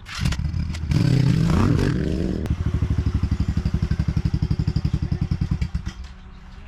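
A small engine revs with rising pitch, then runs with an even, rapid pulsing beat and shuts off about six seconds in.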